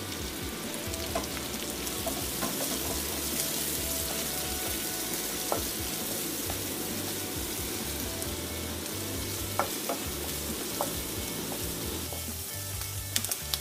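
Sliced onions sizzling in hot coconut oil in a non-stick pan while being stirred with a wooden spatula, which clicks against the pan a few times.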